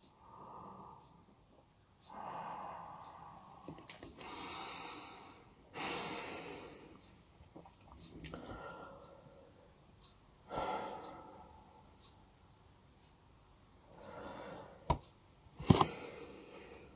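A man breathing close to the microphone, several slow breaths in and out, then the rustle of hands handling the recording device, with two sharp taps about a second apart near the end.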